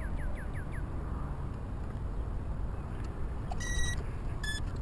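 Electronic beeps from the brushless motor's speed controller in an E-flite UMX Beast 3D as its flight battery is plugged in: one longer beep after about three and a half seconds, then two short ones close together. These are the power-up tones heard before the receiver binds to the transmitter.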